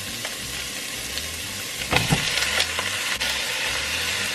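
Ground turkey sizzling as it fries in hot oil in a pan, stirred with a utensil, with a few sharp scrapes and knocks against the pan about two seconds in.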